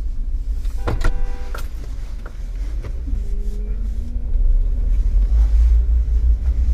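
Truck engine rumbling, heard from inside the cab, getting louder about five seconds in. About a second in, a vehicle horn beeps once briefly, with a fainter, lower tone a couple of seconds later.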